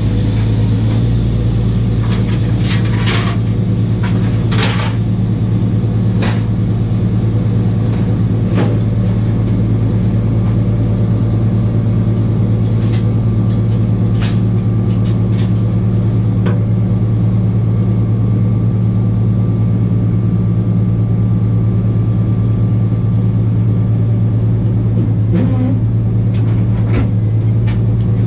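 A truck engine idling steadily, an unchanging drone, with a few light clicks and knocks over it.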